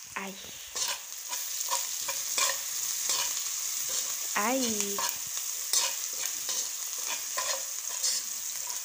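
Onions and spices sizzling in a frying pan, with a spoon stirring and scraping against the pan in quick, irregular strokes.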